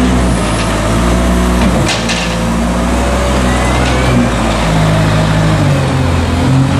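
Diesel engine of a compact articulated wheel loader running under load as it scoops up and lifts a bucket of straw, its pitch shifting a few times as the throttle changes.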